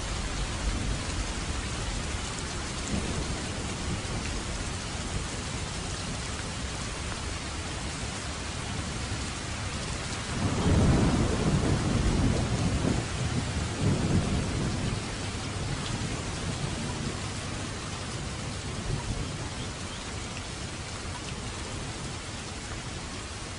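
Steady heavy rain with a roll of thunder that swells about ten seconds in, peaks and rumbles off over the next few seconds.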